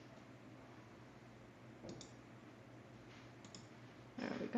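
A few faint computer mouse clicks, with a louder, duller knock near the end.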